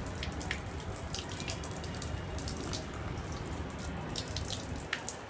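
Water pumped by a submerged DC30A-1230 mini brushless 12 V pump spraying from its outlet and splashing steadily, with scattered drips.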